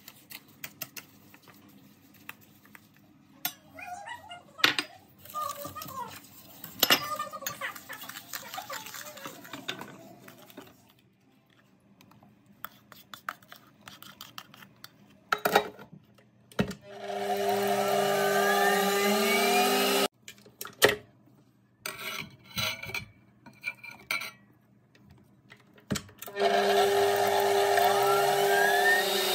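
Electrolux Assistent stand mixer whisking butter: its motor starts twice with a rising whine, then runs steadily for about three seconds the first time and again near the end. Before that, a wooden spoon stirs and scrapes in a dish amid scattered knocks and clicks of bowls and utensils.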